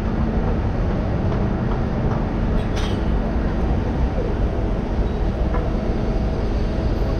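Steady rumble of street traffic and vehicle engines on a busy city street, with a brief sharp clank about three seconds in.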